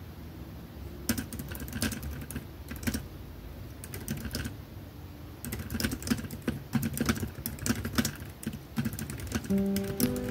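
Typing on a white Logitech keyboard with round, low-profile keys: scattered light key clicks at first, then a quicker run of typing from about halfway. A few plucked guitar notes of background music come in near the end.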